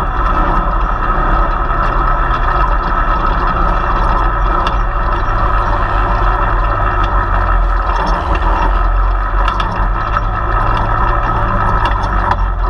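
Side-by-side UTV's engine running steadily under load while climbing a sand hill, heard from a camera mounted on the vehicle, with scattered clicks and rattles.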